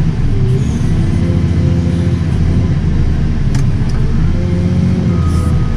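JCB 435S wheel loader's diesel engine running under load, heard from inside the cab, its pitch dipping and recovering slightly as it works the silage clamp. A couple of light clicks about three and a half seconds in.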